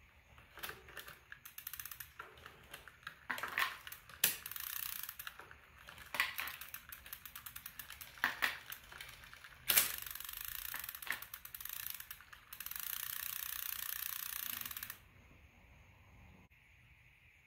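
Bicycle drivetrain being turned by hand: the rear hub's freewheel ratchet ticks in quick bursts as the cranks and wheel turn and stop, running into a steady rapid buzz of clicks for a couple of seconds near the end as the wheel coasts.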